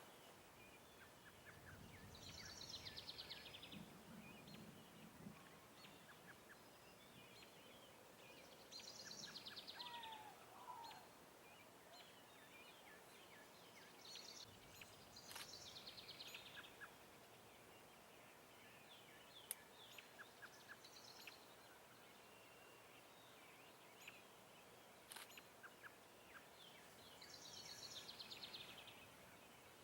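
Faint outdoor birdsong: a buzzy high trill, about a second and a half long, repeated four times several seconds apart, with scattered short chirps between. A faint low rumble runs under the first trill.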